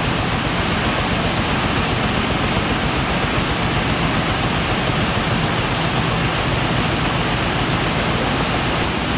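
Hydraulic scrap-paper baler's power unit running steadily: a constant low hum under an even rushing noise, with no starts or stops.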